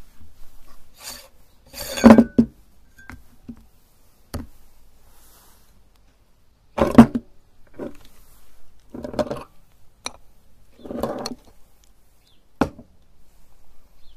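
Metal parts of a hand-cranked meat grinder clanking and clinking as it is taken apart, its perforated plate off and the auger being pulled from the barrel. A handful of separate knocks, the loudest about two seconds in and about seven seconds in.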